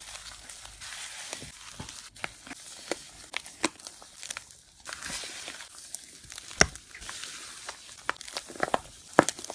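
Slime being squeezed and worked by hand: a steady run of fine crackles and sticky clicks with many sharp pops, the loudest about two-thirds of the way through and a quick cluster near the end.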